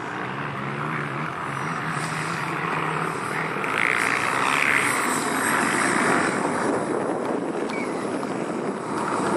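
JetCat 160 model jet turbine of an RC Skygate Hawk running at low power as the model lands and rolls out on the runway: a steady rushing hiss with a faint high whine. It grows louder about four seconds in as the jet rolls past close by, then eases off.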